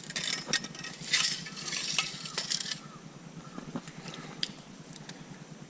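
Water splashing and dripping, with dense crackle and clinking drops for about three seconds, then thinning to scattered single drips.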